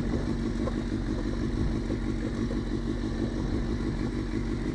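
Motorcycle engine running at a steady pitch, held at an even speed without revving.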